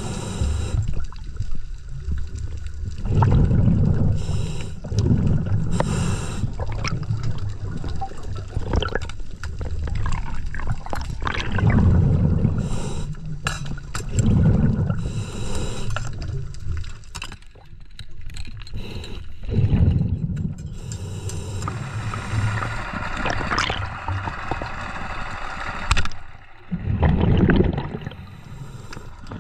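Scuba regulator breathing underwater: bursts of exhaled bubbles rumbling and gurgling every few seconds, with scattered sharp clicks between them.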